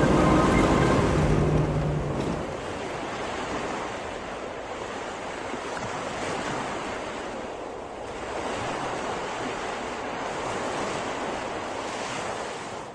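Ocean surf washing in as a steady rushing noise that swells and eases, after a music track fades out about two seconds in.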